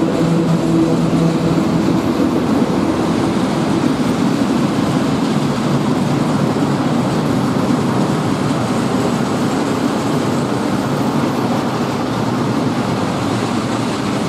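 Freight train of open coal wagons rolling past, a continuous loud rumble and rattle of wheels on rail. The steady hum of the ET22 electric locomotive that hauls them fades out in the first couple of seconds.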